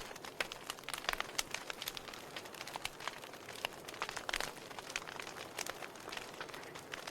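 Wood fire crackling in a fireplace: irregular snaps and pops, a few louder than the rest, over a soft steady hiss.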